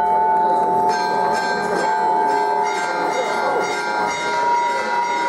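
Church bells ringing, several bells of different pitch struck one after another so that their tones overlap, over the murmur of a crowd.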